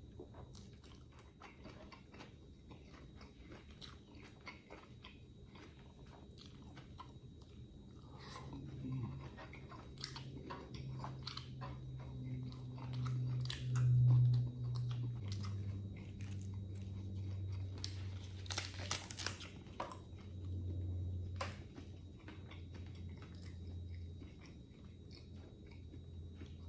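A person chewing and biting crunchy food close to the microphone: a run of crisp crunches and mouth clicks. A low steady hum comes in about a third of the way through, drops slightly in pitch about halfway, and fades near the end.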